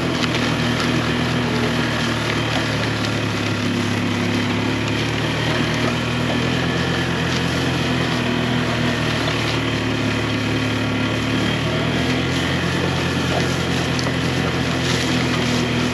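Small vehicle engine running steadily under load as it tows a structure across the field, at a constant speed with no change in pitch.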